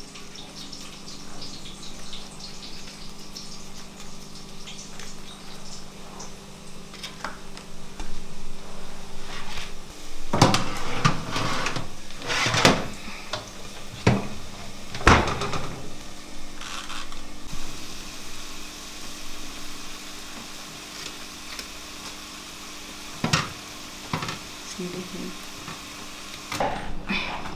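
Metal roasting tray clattering and knocking against the oven rack as it is handled in an open oven, with a cluster of knocks in the middle and one more sharp knock later. A steady low hum runs underneath.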